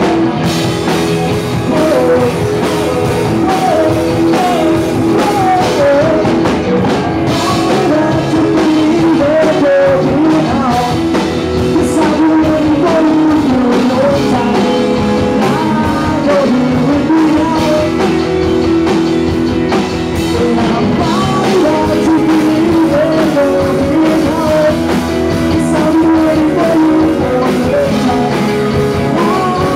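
Live rock band playing, with a male singer over electric guitar, bass guitar and drum kit, loud and unbroken.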